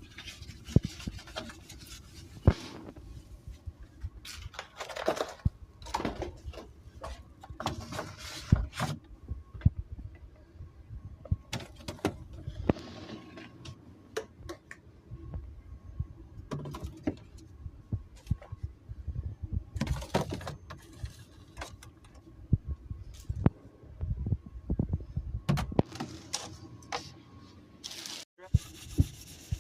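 Irregular knocks, clicks and rustling swishes from items and containers being handled and set down while a fridge is cleaned and stocked.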